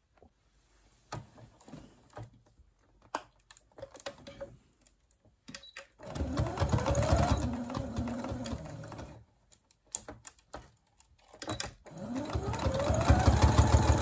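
Electric household sewing machine stitching Velcro onto cotton fabric. It runs in two bursts, one about six seconds in and one near the end, each with a rising whine as the motor speeds up. Before that there are only a few light clicks of handling.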